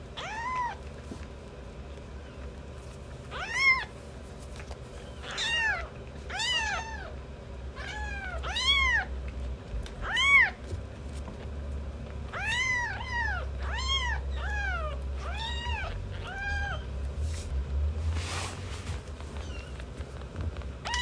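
Young kitten mewing: about fifteen short, high calls that rise and fall in pitch, coming in clusters, over a low steady rumble.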